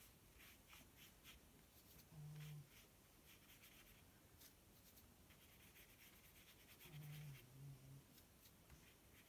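Faint scratching of a small paintbrush dabbing and stroking wet ink across embossed watercolour card, with two short low hums, one about two seconds in and one near the end.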